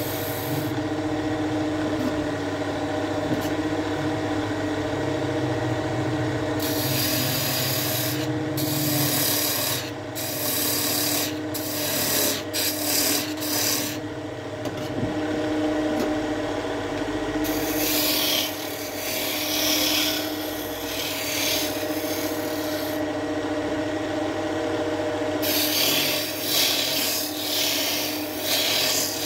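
Wood lathe running with a steady motor hum while a turning tool works the spinning wood, its scraping noise starting and stopping in stretches.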